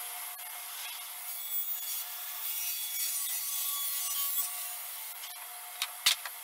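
Table saw with a crosscut blade running and trimming a plywood panel. It is a little louder while the blade is in the wood, from about a second and a half in to about four and a half seconds. A single sharp knock comes near the end.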